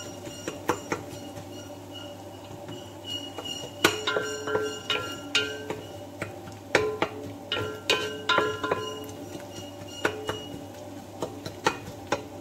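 Wooden spatula knocking and scraping against a large aluminium cooking pot while stirring frying onions: irregular knocks, many leaving a short metallic ring.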